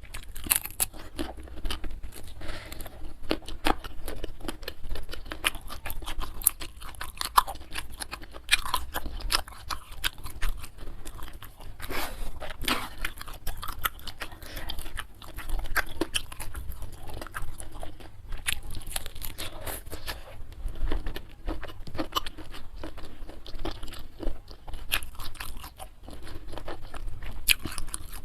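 A person chewing and crunching food close to the microphone: a dense, irregular run of small crisp crunches.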